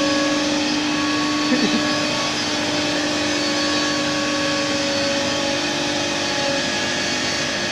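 CNC wood router running a cut: a steady whine from the spindle over a constant rushing machine noise.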